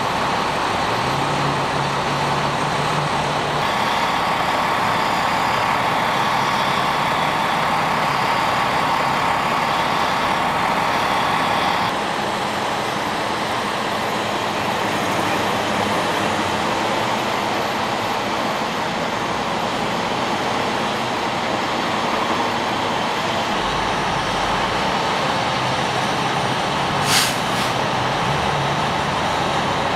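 Idling fire engines and passing freeway traffic: a steady hum of diesel engines and road noise, with a brief sharp hiss near the end.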